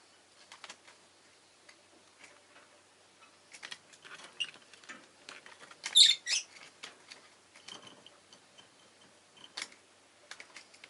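Rosy-faced lovebirds making soft scattered chirps and clicks, with a loud pair of sharp, high chirps about six seconds in.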